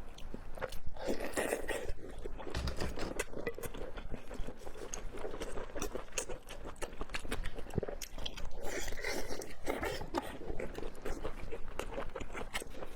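A person biting and chewing food, with many short, sharp clicking mouth sounds close together.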